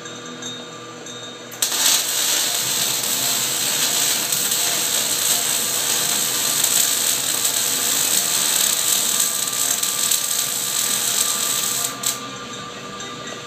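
Metal lathe running under power while a 3/4-16 tap in the tailstock chuck cuts threads into a steel bearing cap. The loud, steady machine noise starts suddenly about two seconds in and cuts off about two seconds before the end.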